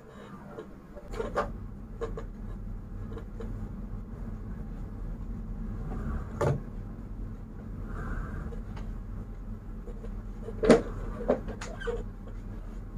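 Heavy wood-framed sofa being shoved and set down on a carpeted floor: scattered knocks and thumps, a dull thud near the middle and the sharpest knock about two-thirds through, over a steady low hum.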